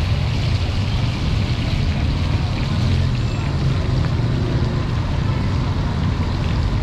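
Steady low rumble and hiss of a roadside food stall, from gas burners under the karahi woks and passing traffic.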